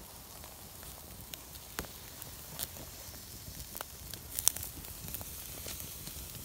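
Wood campfire of sticks crackling, with scattered sharp pops over a low steady hiss, the loudest pops about four and a half seconds in.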